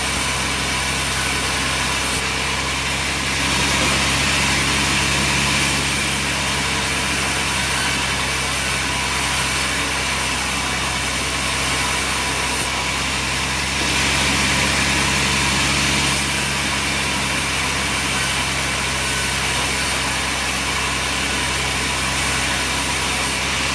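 Sawmill machinery running with a steady engine hum and mechanical noise, swelling slightly twice.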